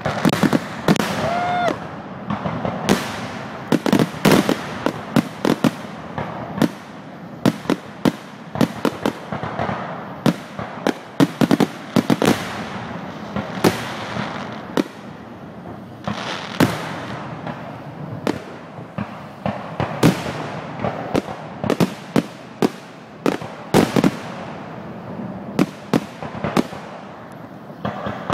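Aerial fireworks shells bursting in a dense, fast barrage of sharp bangs, with crackling in between.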